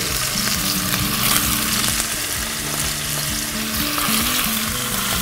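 Seared beef cubes sizzling steadily in hot olive oil in a stainless steel pan as diced green peppers are added.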